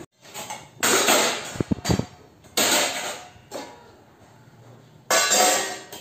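Steel kitchen vessels and ceramic dishes clattering against each other and the dish rack as they are put away, in several separate bursts of knocks and clinks.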